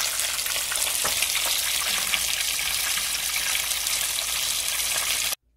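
Breaded squid rings deep-frying in hot oil: a dense, steady sizzle with a few light clicks, cutting off suddenly near the end.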